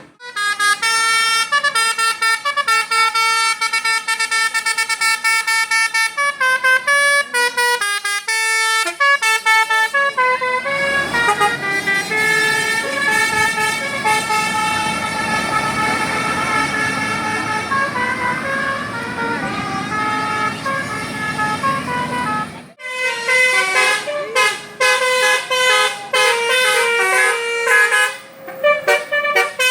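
Indonesian bus 'telolet basuri' multi-tone musical horn playing a melody in held notes that change pitch in steps. About a third of the way in, engine and road noise of the passing bus join under the horn tune; after a sudden break, shorter horn notes follow.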